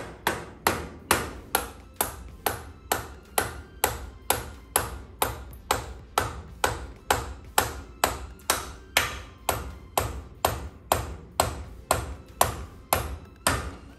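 Hammer tapping a kingpin down through the spindle into the I-beam axle: steady metallic taps about two a second, each ringing briefly. The kingpin is being driven in to line its notch up with the kingpin stopper.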